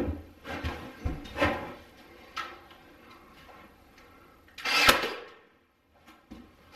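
A brad nailer firing once into wood trim: one short, loud hiss-and-bang about five seconds in. Several lighter knocks and handling sounds come before it.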